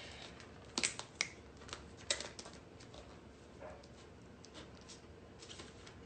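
Hands working granular incubation substrate in a plastic cup: a few sharp clicks about one and two seconds in, then fainter scattered clicks and scratchy crunching as fingers press into the substrate.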